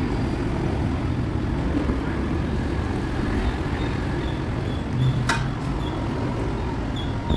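Steady low rumble of road vehicle noise, with a single sharp click about five seconds in.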